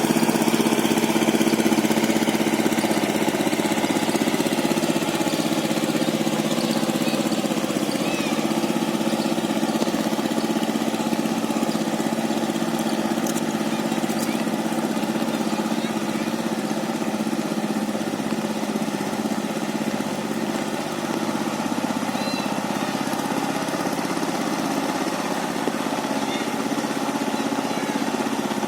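Power tiller engine running steadily, a continuous mid-pitched drone, growing a little quieter past the middle.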